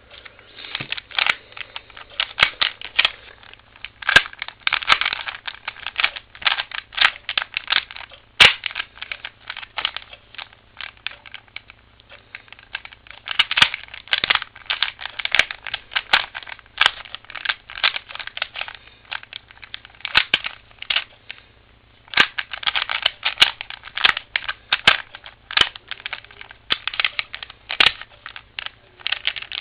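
Plastic 3x3x3 Rubik's Cube being turned by hand: quick runs of clicking and rattling as the layers are twisted. The clicking pauses briefly twice, about twelve seconds in and again about twenty-one seconds in.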